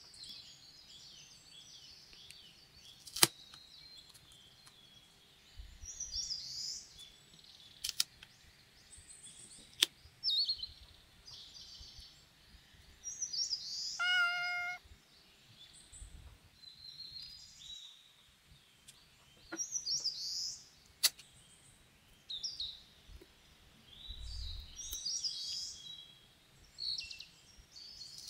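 Paper sticker cutouts being peeled and handled with metal tweezers: scattered light crinkly, rustling peeling sounds with a few sharp clicks. Midway, a short steady pitched chime.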